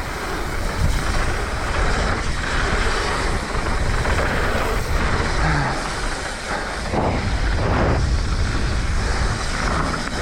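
Mountain bike rolling fast down a dirt trail: a steady rush of tyre noise and bike rattle, with wind buffeting the action camera's microphone.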